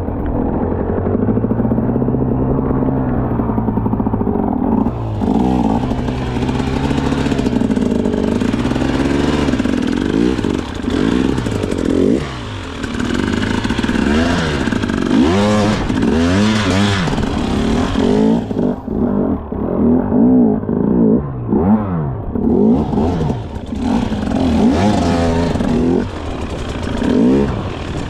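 Enduro motorcycle engine being ridden hard, the revs rising and falling over and over, with repeated quick blips and pulls every second or two.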